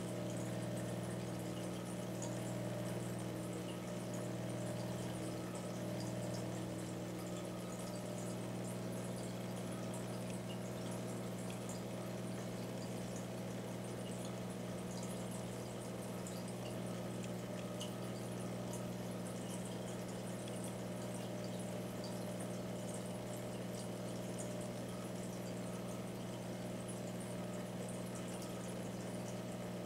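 Aquarium pump or filter running with a steady hum and water bubbling and fizzing.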